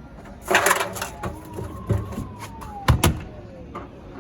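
Beko washing machine drum being spun by hand and coasting down, a faint whine falling steadily in pitch as it slows, with a clatter and several sharp knocks from the door and drum being handled.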